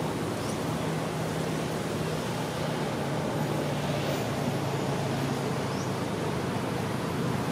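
Steady background noise with a low, even hum and no distinct events.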